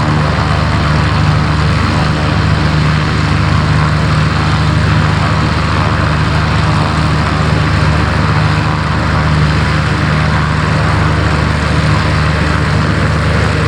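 Antonov An-2 biplane's nine-cylinder radial engine and propeller running steadily with a low, even drone.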